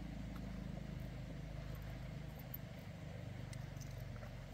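A small motorcycle engine running steadily at idle, with an even, unchanging pitch.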